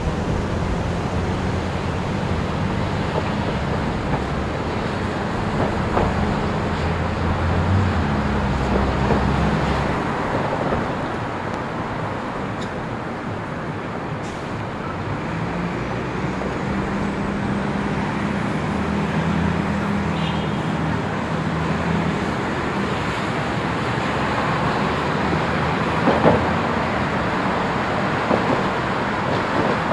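City street traffic: cars and a bus running and passing at an intersection, with a low engine hum that is strongest in the first third, picked up by a camcorder microphone out in gusty wind.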